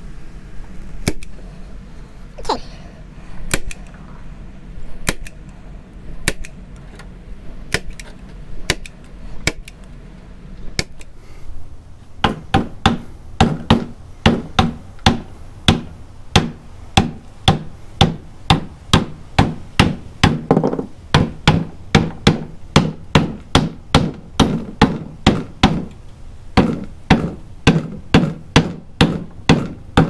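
Staple gun driving staples through screen mesh into a wooden hive bottom-board frame: scattered single clacks at first, then rapid regular strikes about two or three a second, with a short pause near the end. A low steady hum stops about eleven seconds in.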